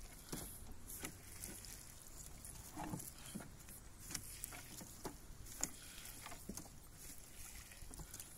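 A wet fishing net being hauled in by hand from the water, heard as faint scattered taps, drips and small splashes.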